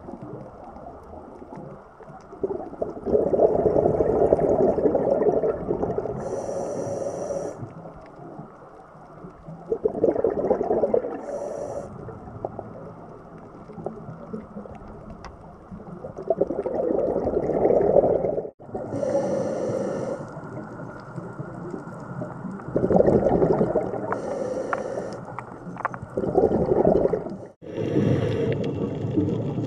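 A scuba diver's regulator breathing underwater: a short hissing inhale, then a longer bubbling rush of exhaled air, repeating every few seconds. The sound briefly drops out twice in the second half.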